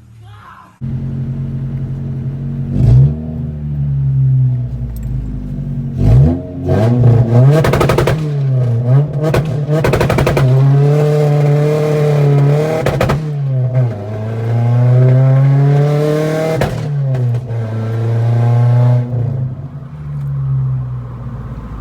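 Honda H22A4 four-cylinder engine in a 5th-gen Prelude, with headers straight-piped to a muffler, starting about a second in and running, revved up and down repeatedly. Several sharp cracks punctuate the revving.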